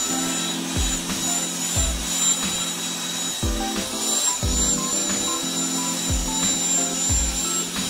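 Background music with a steady beat and deep falling bass hits. Under it runs the steady high whine of a corded electric tiller's motor, wavering slightly as it works the soil.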